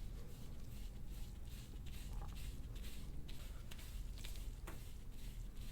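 Repeated short strokes of a soft-tissue scraping tool drawn over the skin of the back, about two to three strokes a second, each a brief, faint rasp.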